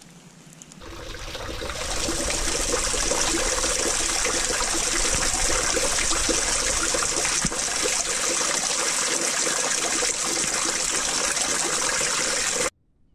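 Rainwater running off the pavement and trickling into a storm drain grate, a steady splashing flow that swells in during the first two seconds and cuts off suddenly near the end.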